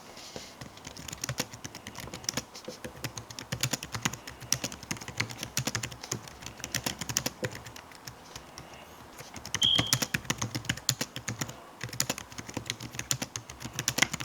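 Typing on a Seenda slim backlit Bluetooth keyboard: quick runs of light, clicky keystrokes from its non-mechanical keys, with a short lull about two-thirds of the way in.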